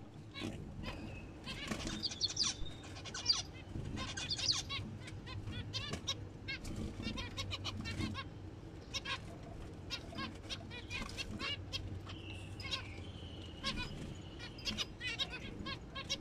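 Zebra finches calling: a busy run of short, quickly repeated chirping calls, with a few longer held calls mixed in.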